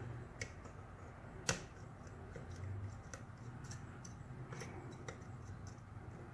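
Faint, scattered metallic clicks and ticks of a lock pick and tension wrench working in a small dimple cam lock, with one sharper click about a second and a half in.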